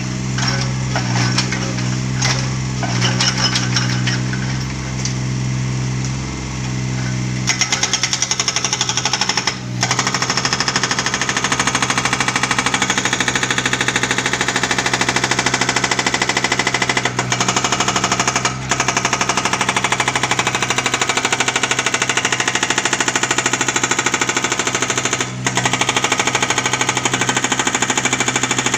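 Hydraulic breaker on a Takeuchi mini excavator hammering concrete, a rapid continuous rattle over the drone of the machine's diesel engine. For the first several seconds the engine runs with only scattered knocks; from about seven seconds in the breaker hammers steadily, stopping briefly a few times.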